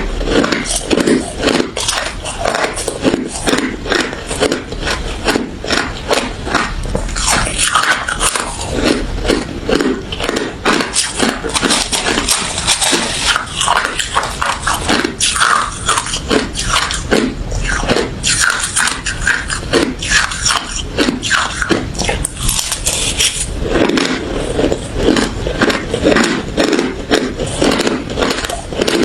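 Close-up crunching of ice being bitten and chewed, dense and irregular crunches one after another.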